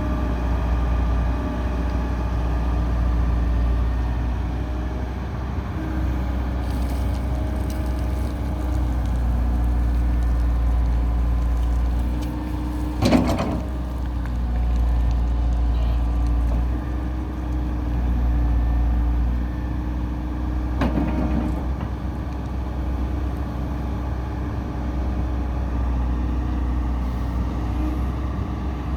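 Komatsu PC160LC-7 hydraulic excavator's diesel engine running, its note wavering slightly. A sharp knock comes about 13 seconds in and a lighter one about 21 seconds in.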